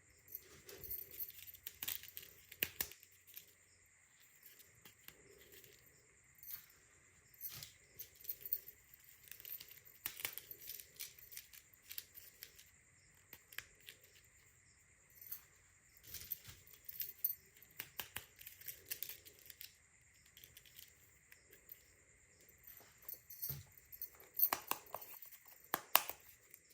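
Small plastic toys and packaging being handled: faint, scattered clicks, taps and crinkles at irregular intervals, a little louder near the end. A faint steady high whine sits underneath.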